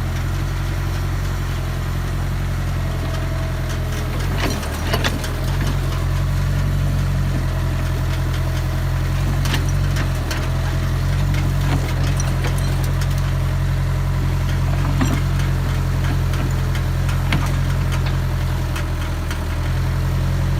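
D12 single-cylinder diesel engine running steadily, with a few sharp clicks over its running sound.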